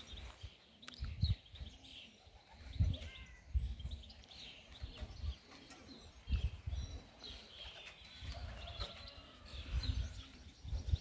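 Racing pigeons cooing in low, repeated arching calls, with small birds chirping faintly higher up.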